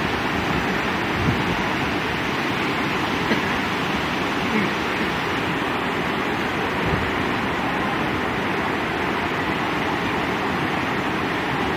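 Water rushing steadily over a low river weir, white water churning below the drop.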